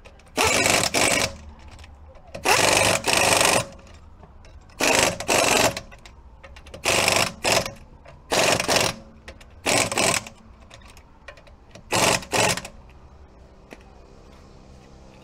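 Pneumatic impact wrench spinning a car wheel's lug bolts, run in about seven short bursts of under a second each, a second or two apart.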